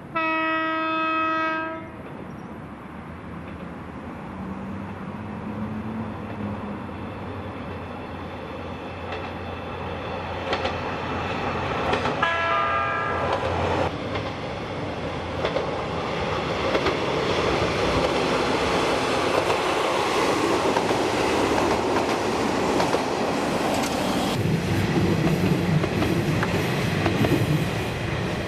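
Kanto Railway Jōsō Line diesel railcar sounding its horn once, loudly, for under two seconds; a second, fainter horn follows about twelve seconds in. A diesel railcar then draws near and runs past, its engine and wheel noise growing steadily louder, with wheels clacking over the rails.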